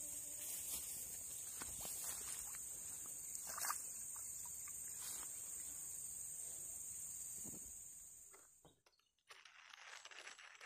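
Steady high-pitched insect chorus with a few faint ticks, cutting off suddenly about eight and a half seconds in.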